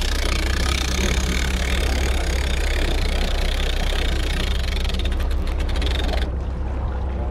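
Charter boat's engine idling, a steady low drone under a hiss of wind and water; the higher hiss cuts off suddenly about six seconds in.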